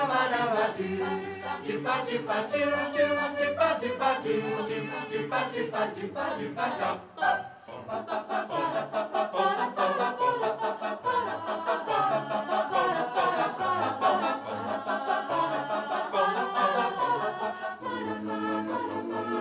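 A song sung by a group of voices together over a bass line, with a short break about seven seconds in.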